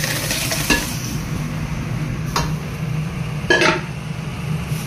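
Steel ladle stirring an aluminium cooking pot of ragda, clinking against the pot three times, loudest about three and a half seconds in, over a steady low hum.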